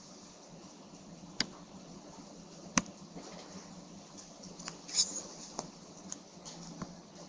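About seven faint, separate clicks and taps over a low steady background hiss, the sharpest about three and five seconds in.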